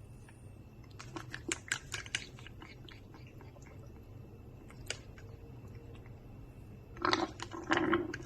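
Baby parrot being spoon-fed: a flurry of short, wet clicking and smacking sounds from its beak working at the food, about a second in and again near the end, where a low steady note joins them.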